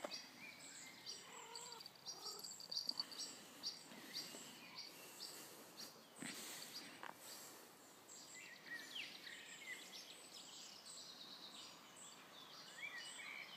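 Birds chirping and calling faintly in the background, short whistled notes with a quick trill of repeated notes about three seconds in. A brief rustle about six seconds in.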